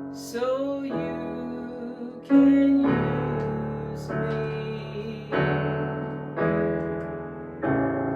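Piano playing slow, held chords, a new chord struck every second or two and left to ring and fade.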